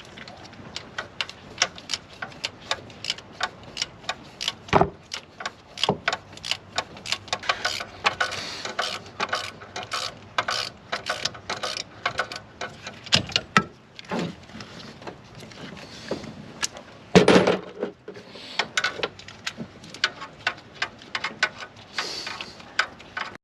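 Socket ratchet clicking in quick runs as a spark plug is worked loose, with a few louder knocks of metal tools.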